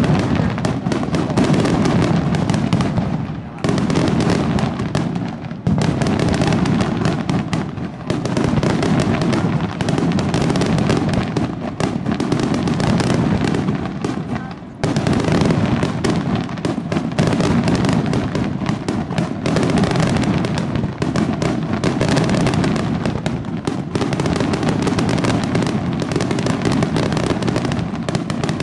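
Aerial fireworks display: a dense, almost unbroken barrage of shell bursts and crackle, with many bangs a second, and brief lulls about 4, 6, 8 and 15 seconds in.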